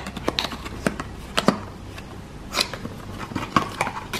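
A small paperboard Happy Meal toy box being opened by hand: its tab is pulled free and the flaps are folded back, giving a series of sharp card clicks and crinkles about a second apart.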